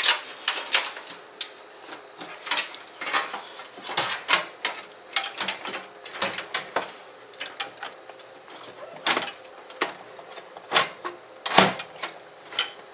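Irregular clicks, knocks and scrapes of a computer power supply unit being handled and fitted into a metal PC case, with the loudest knock about eleven and a half seconds in.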